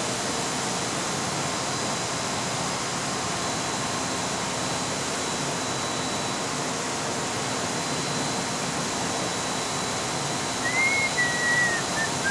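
Steady rushing air noise from a bank of air-cooled condenser fans running, with a faint steady whine over it. Near the end a short whistle rises and falls.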